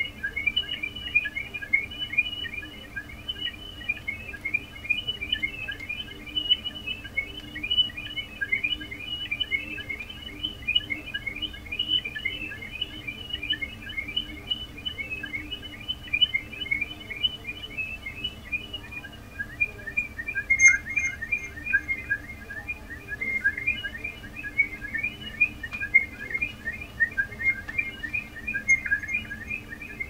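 Korg MicroKORG synthesizer patch making an electronic imitation of bird chirping: a rapid, unbroken stream of short high tweets, several a second. The pitch pattern shifts lower about two-thirds of the way through.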